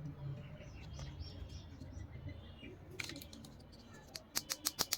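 Small plastic doll's-house pieces being handled, with a sharp click about three seconds in and a quick run of about six sharp clicks near the end.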